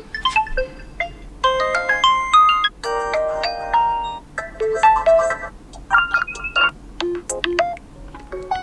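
OPPO Reno7 5G alarm tones playing through the phone's loudspeaker: a series of short electronic chimes and chords, with the tune and timbre changing every second or so.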